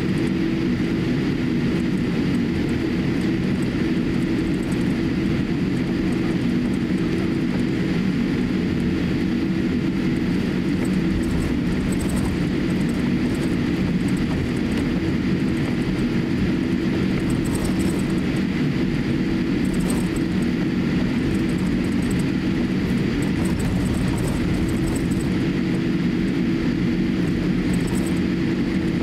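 Steady cabin hum inside a Boeing 787-8 airliner taxiing, its jet engines running at low taxi power with a constant drone. Faint light ticks come through now and then.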